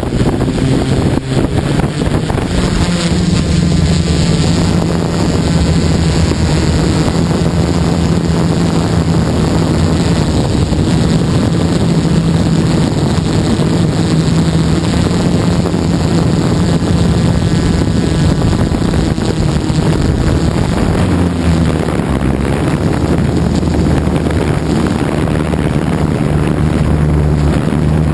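DJI F550 hexacopter's six electric motors and propellers droning steadily as heard from a camera mounted on the craft, with wind noise on the microphone. The drone rises in pitch about two seconds in as it lifts off and climbs.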